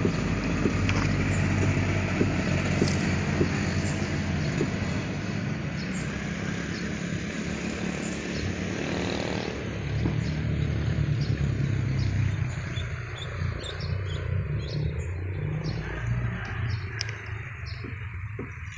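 An engine running steadily with a low drone, and a few light clicks and chirps near the end.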